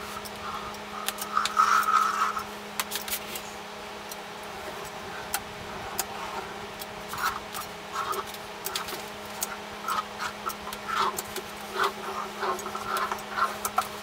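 Hand caulk gun laying beads of caulk on a shower wall board: irregular clicks of the trigger and short rubbing, squeezing noises as the nozzle is drawn along, over a steady low hum.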